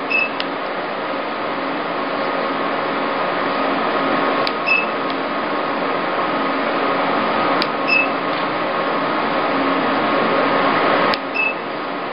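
MED-230 E-light (IPL + RF) machine firing its light handpiece: four pulses about three to four seconds apart, each a sharp click followed by a short high beep, over the unit's steady running hum.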